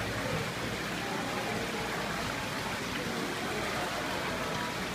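Steady rushing hiss of running, aerated water in live-seafood tanks, with faint voices in the background.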